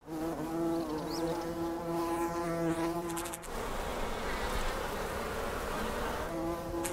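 Honeybees buzzing. A single steady buzz with a clear pitch gives way, about halfway through, to a rougher, denser hum of many bees at the hive, and the pitched buzz returns near the end.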